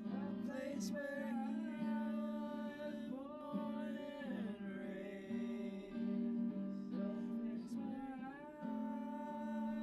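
Music: acoustic guitar playing, with a melody line that glides between notes.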